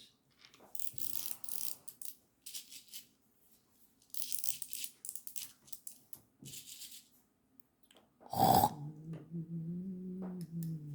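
Small plastic toy parts being handled and fitted together: several short rattling, scraping bursts, then a loud knock about eight seconds in, followed by a steady low hum.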